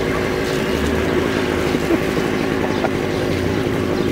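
An engine running steadily at a constant speed, with a held drone.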